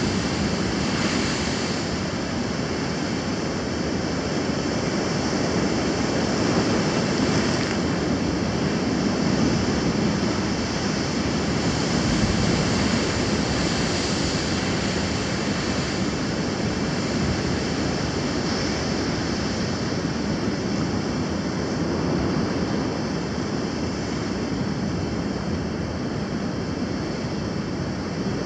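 Ocean surf breaking and washing over lava rocks: a steady, loud rush of water that swells and eases as the waves come in, louder for a while in the middle.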